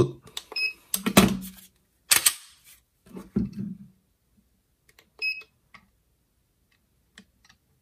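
Digital trigger pull gauge giving short electronic beeps, one about half a second in and another about five seconds in, among clicks and knocks from the gauge's hook and the pistol being handled during a trigger pull test.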